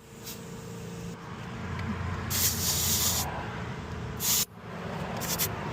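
Compressed air hissing in short bursts at a car tyre's valve stem as an air chuck is pressed on to inflate the tyre, a longer burst about two seconds in and shorter ones after, over a steady low hum.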